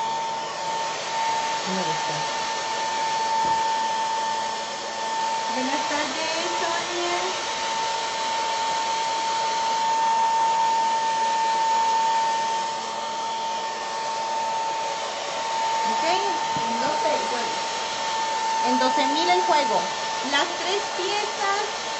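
Handheld hair dryer running steadily, an airy rush with a constant whine.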